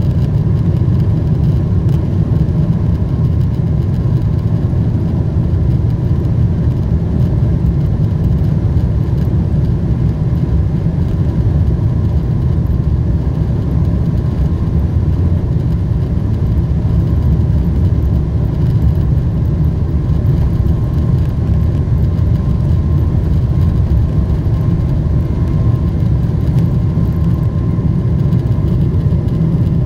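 Boeing 777-200LR heard from inside the cabin on its takeoff roll: the GE90 turbofan engines at takeoff power and the airliner's run down the runway make a loud, steady, low rumble, with a faint steady whine above it.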